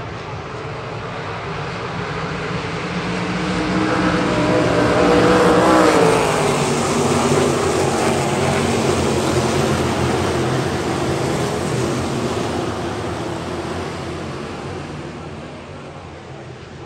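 A pack of winged sprint cars' V8 engines running past on the dirt oval. The sound grows louder to a peak about six seconds in, bending in pitch as the cars go by, then fades as they move away.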